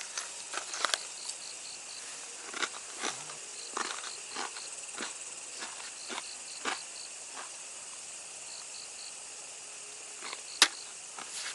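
Night insects chirping in short repeated groups of three or four high pulses, with scattered sharp clicks and crackles over them and one louder click near the end.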